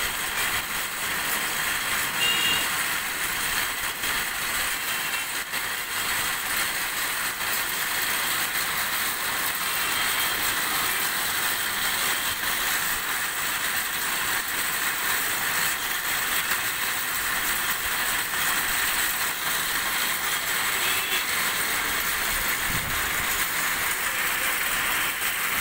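Yarn reeling machine running steadily, its belts, pulleys and spinning reel making a continuous mechanical whir.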